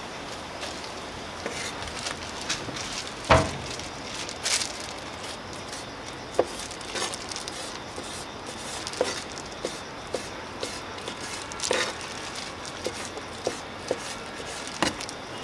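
Irregular knocks and clicks of a knife cutting sundae on a wooden cutting board, the loudest a sharp knock about three seconds in.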